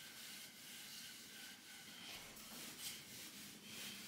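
Wooden rolling pin rolling over floured dough on a wooden board: a faint rubbing.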